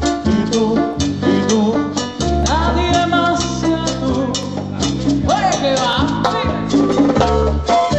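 A live Cuban salsa band playing, with congas and other percussion under a strong bass line, and a singer's voice rising over the band twice.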